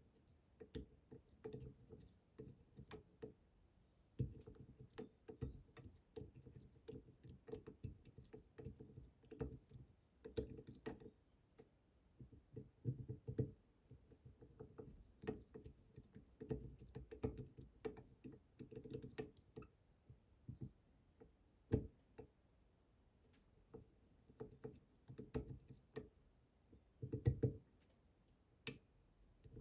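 Faint, irregular clicking and tapping of a lock pick pushing the tapered pins of a Bramah-style pump lock under a tensioner, with occasional sharper clicks and soft knocks. The pins keep falsely setting and have to be pushed again and again.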